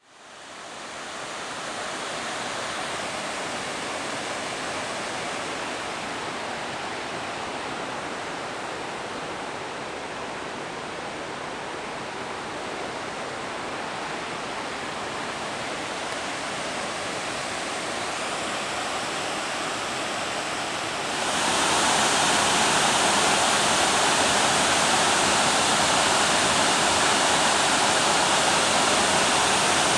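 Waterfall: a steady rush of falling water, which gets louder about two-thirds of the way through.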